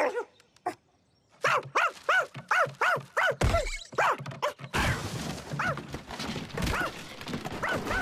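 Cartoon dog barking rapidly: a quick run of about a dozen rising-and-falling barks starting about a second and a half in, followed by a noisier stretch with a few more scattered barks.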